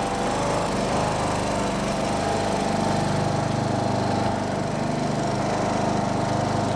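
John Deere lawn tractor's small engine running steadily.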